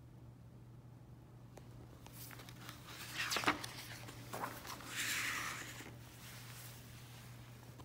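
A glossy book page being turned by hand and pressed flat: paper rustling and sliding from about two seconds in, with the loudest crackles a little past the middle, over a faint steady low hum.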